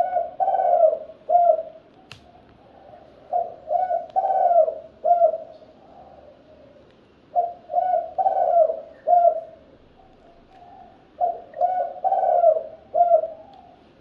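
Spotted dove cooing: four phrases of several coos each, about every four seconds. A single sharp click comes about two seconds in.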